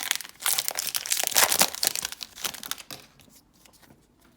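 Foil wrapper of a Modern Horizons booster pack crinkling and crackling as it is handled and torn open. The crackle is dense for about three seconds, then stops.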